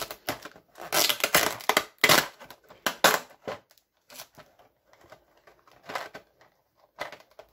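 Clear plastic blister tray and packaging of a Nendoroid figure crackling and crinkling as hands pull an accessory out. Several loud crackles come in the first three and a half seconds, then quieter clicks and rustles.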